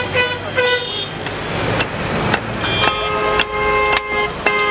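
Vehicle horns honking from street traffic: a few short toots in the first second, then longer overlapping honks from a little under three seconds in. Sharp knocks of a butcher's blade striking a wooden chopping block sound in between.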